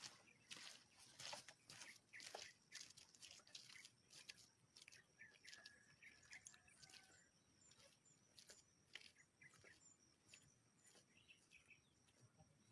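Faint outdoor sounds: rustling and crunching clicks for the first few seconds, then quiet bird chirps and a steady high insect trill with short repeated chirps.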